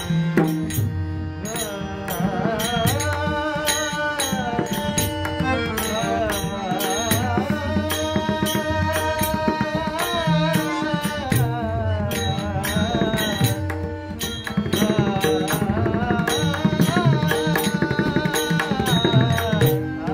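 Marathi devotional bhajan in classical style: a voice sings long ornamented melodic runs over a steady held drone, accompanied by pakhwaj (mridang) drumming with deep bass strokes and crisp treble strokes.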